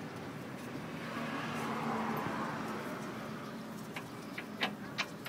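Steady background hiss that swells and fades over a couple of seconds, then several light, sharp metallic clicks near the end as the differential's spider gears are turned by hand inside the open Ford 7.5-inch axle housing.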